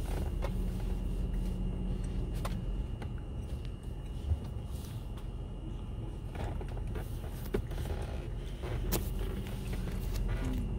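Steady low rumble inside a stationary car's cabin with the engine idling, with a few faint clicks.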